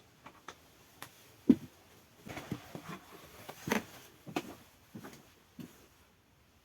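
Irregular knocks and clicks, as of objects being handled or set down, the loudest a single knock about one and a half seconds in.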